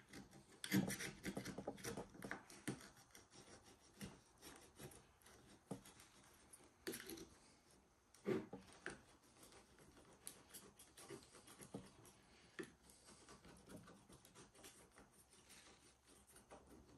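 Faint, irregular scraping and light clicking of hand work on a small tool, with a few louder knocks about a second in and again near seven and eight seconds.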